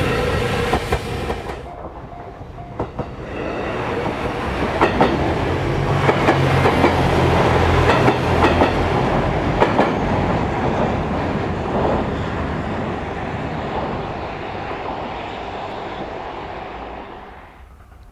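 JR East GV-E400 series diesel-electric railcar train passing, its engine and motors droning low while the wheels click over rail joints. The sound breaks off about two seconds in, then builds, peaks midway and fades away near the end.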